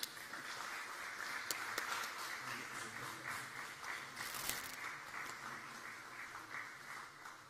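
Audience applauding, the clapping starting at once and slowly fading toward the end, with a few sharp clicks among it.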